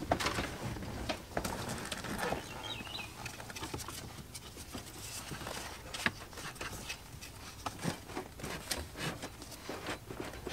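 Faint, irregular clicks, knocks and rustling from someone moving about the truck cab and handling the loosened dashboard and its plastic HVAC housing.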